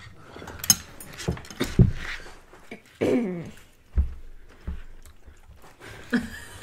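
Dinner-table eating sounds: chopsticks clicking against dishes and chewing, with a few sharp clicks and a short falling voice-like sound about three seconds in.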